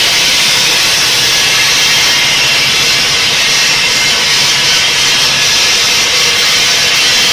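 Large diamond circular saw blade of a gantry bridge saw grinding through a row of eight granite blocks at once: a loud, steady hissing grind, with a faint low hum underneath.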